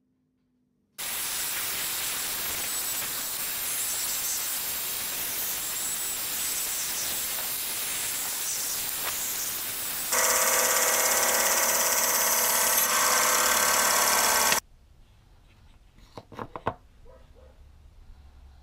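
A steady hissing noise, then, about ten seconds in, a bandsaw cutting through a glued-up purpleheart and hardwood handle blank: louder, with a whine over the hiss, and it stops suddenly. A few light knocks follow, like wooden blanks being set down on a bench.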